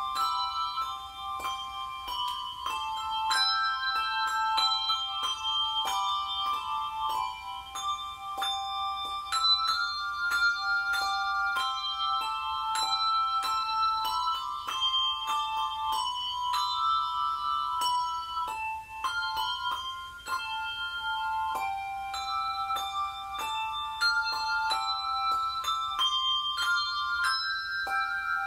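A trio of handbell ringers playing a tune on brass handbells. The notes are struck in quick succession and each rings on, overlapping the next.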